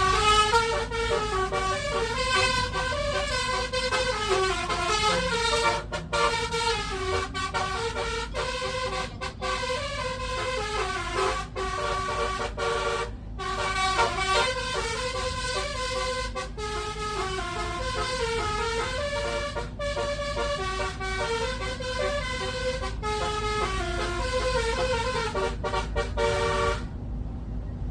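Truck's musical horn playing a Vietnamese pop song melody, note after note with brief breaks, dedicated to a bride and groom, cutting off sharply near the end.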